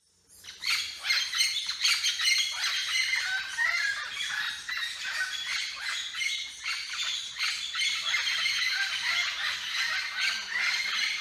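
Red-lored amazons squawking and chattering, a steady stream of many overlapping harsh calls with no pause.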